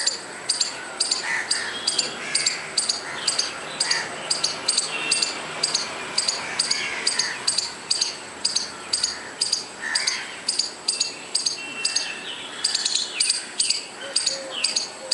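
Squirrel calling in a rapid, even run of short, sharp, high chirps, about three a second and often in pairs, with fainter bird calls behind.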